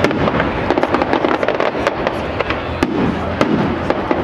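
Aerial fireworks bursting in a dense, unbroken barrage: many sharp cracks and bangs several times a second over a continuous crackle.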